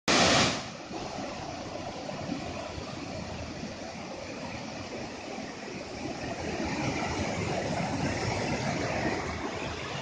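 Waterfall and river rapids rushing: a steady, even noise of falling and tumbling water. A short, loud burst of noise in the first half second.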